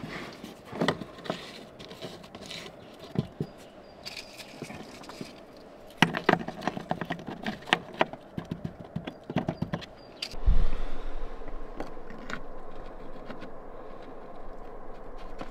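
Stones being knocked and fitted into a stone wall: scattered sharp clacks, a quick run of them about six seconds in, then a dull thud about ten and a half seconds in followed by a steadier low background with fainter taps.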